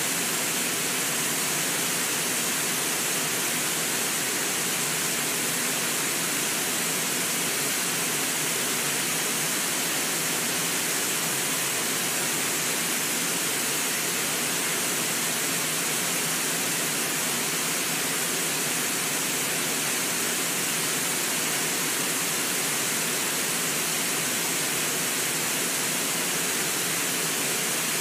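River waterfall rushing steadily over a low rock ledge, a constant even hiss of falling white water with no breaks.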